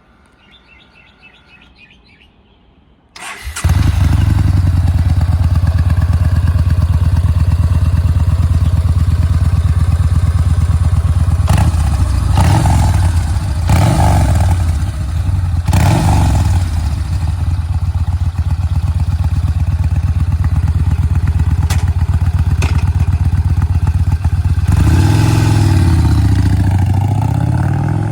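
V-twin motorcycle engine starting about three seconds in, then idling steadily. It is revved several times around the middle and once more near the end.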